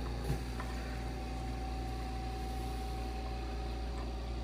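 Steady machine hum, with a light knock about a third of a second in as a Drive oxygen regulator is slid down onto an E-tank cylinder's post valve, and a faint click near the end.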